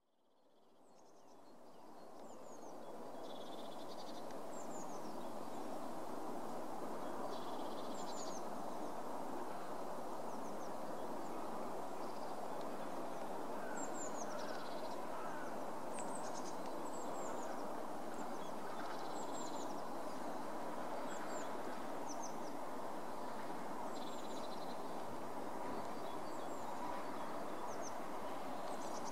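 Steady rush of open water, fading in over the first few seconds, with small birds' short, high calls repeating over it.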